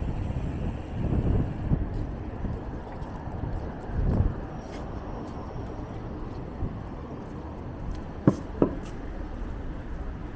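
City road traffic heard while riding a bicycle: a steady low rumble of passing vehicles, with two sharp clicks close together near the end.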